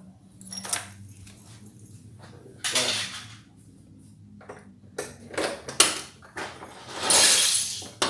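Scattered metal clinks and knocks of hand tools and exhaust parts being handled, with two longer scraping rasps, the louder one near the end. The engine is not running.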